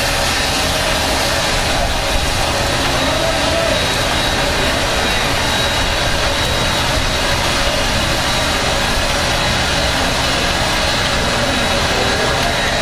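Steady mechanical rumble and hiss of a live Canadian National steam locomotive being slowly turned on a turntable.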